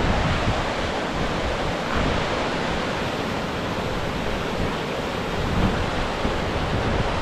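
Steady, loud rushing noise, with gusts of wind buffeting the microphone.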